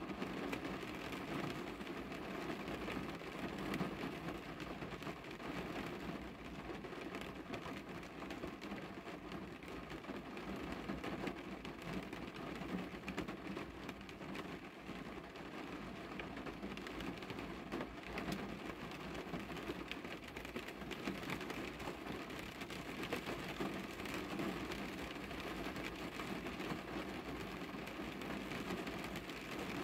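Rain falling on a car's window glass, heard from inside the car: a steady, dense patter of drops.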